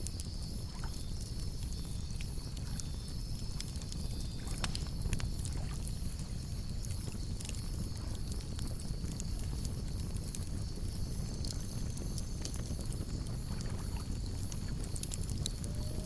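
Wood campfire burning: a steady low rumble of the flames with sparse sharp crackles and pops from the burning wood. High above it runs an evenly pulsing insect chirp, about three pulses a second.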